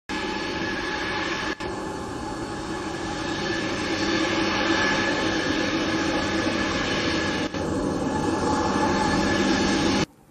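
Jet airliner engines running, a loud steady noise with a held whine in it. It dips out briefly twice and cuts off abruptly near the end.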